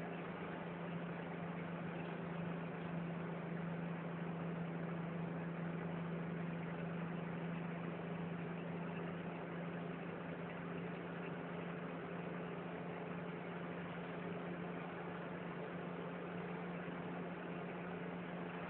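Car cabin noise while cruising on a highway: a steady low engine drone with even tyre and road noise, no change in speed.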